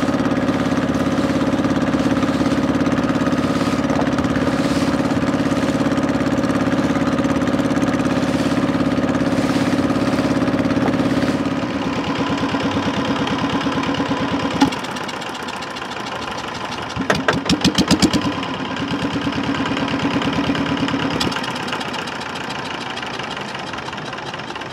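A small fishing boat's engine running steadily, then throttled down about halfway through. There is a brief clattering rattle a few seconds later, then the engine picks up again before easing off near the end.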